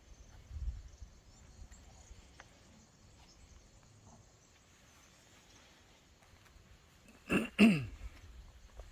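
A person clearing their throat with two short, harsh coughs near the end, the second dropping in pitch, over quiet outdoor background.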